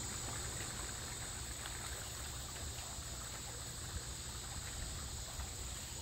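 Steady outdoor ambience: a constant high-pitched insect trill over a low rumble.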